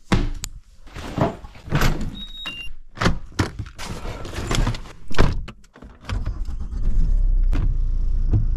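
A series of clunks and knocks, including a car door shutting, then about six seconds in a car engine starts and runs steadily.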